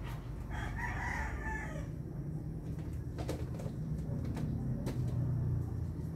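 Commercial planetary stand mixer running steadily, kneading dough in its steel bowl with a low motor hum. About half a second in, a rooster crows once, lasting about a second and a half.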